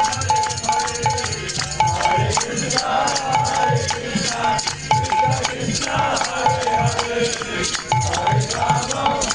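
Kirtan music: a steady low drum beat under fast, evenly repeated shaking percussion, with a held melody line that breaks off and returns.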